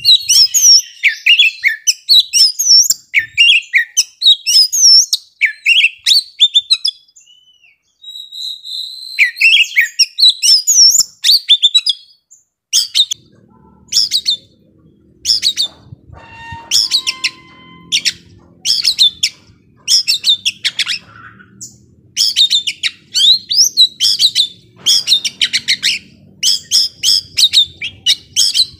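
Young wild-caught Oriental magpie-robin (kacer) singing loudly: varied whistled phrases with rising and falling notes for the first dozen seconds, broken by a short pause, then a long string of short, sharp repeated notes, about two to three a second.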